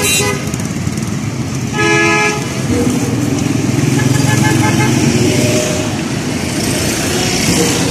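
Busy road traffic running steadily, with a vehicle horn honking briefly about two seconds in and a fainter honk a couple of seconds later.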